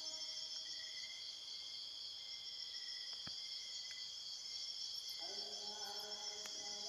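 Night chorus of crickets and other insects, a steady high-pitched chirring.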